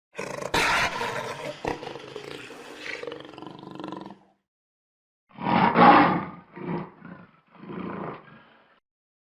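Leopard calls: one long roar lasting about four seconds, then after a pause three shorter roars in quick succession, the first of them the loudest.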